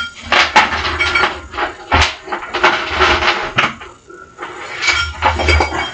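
Metal gear clinking and rattling as a 7.5 kg weight is handled and set up for weighted dips: a run of sharp clinks with short ringing tones, easing off about four seconds in before more clatter.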